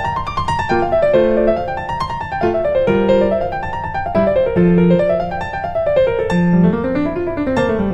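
Background piano music: flowing arpeggios that climb and fall again every second or two over a low bass line.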